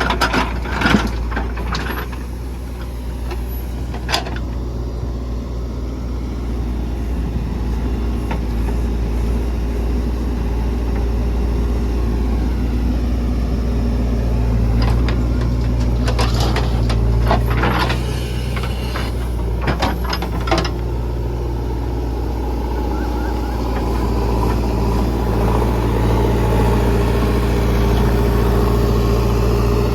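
Heavy diesel engines of a JCB 3DX backhoe loader and a tractor running steadily, with sharp knocks and clatter from the loading work in the first two seconds, once about four seconds in, and several times between about 15 and 21 seconds in.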